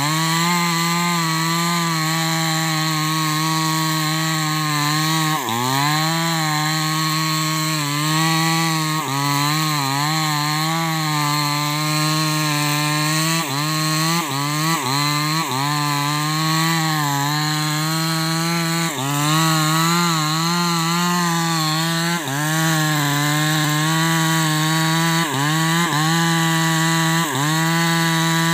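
Two-stroke Maestro 6500L chainsaw cutting through a thick, hard acacia trunk, running at high revs throughout. Its pitch dips and recovers many times as the chain bites and bogs in the hardwood.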